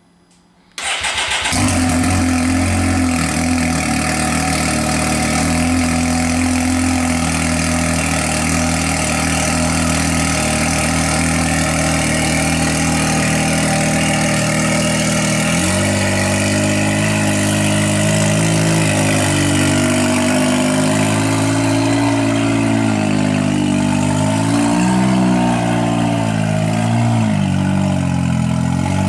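Can-Am X3 side-by-side's turbocharged three-cylinder engine, through a cat-delete exhaust, starting up about a second in and then idling steadily; its pitch steps to a new pattern about halfway through and wavers near the end.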